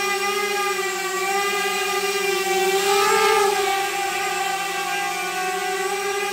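Eachine Blade 185 mini FPV quadcopter's brushless motors and propellers whining steadily in flight, the pitch rising briefly about three seconds in, then settling back.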